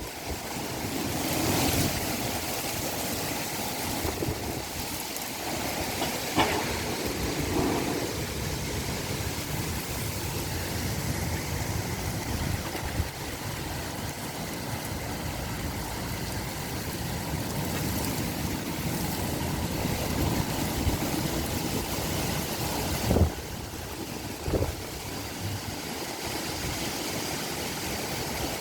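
Strong gusty wind rushing and buffeting the microphone in a steady loud roar of noise, with a few sharp knocks, the loudest about 23 seconds in.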